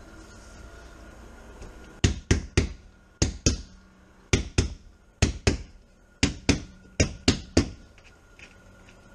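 A hand knocking on a freshly set windshield: about fourteen sharp knocks in quick pairs and threes, starting about two seconds in and stopping near the end, as the glass is pressed down into its urethane bead.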